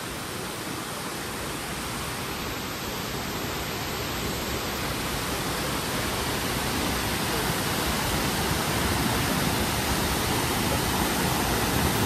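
Waterfall's steady rush of falling water, growing gradually louder.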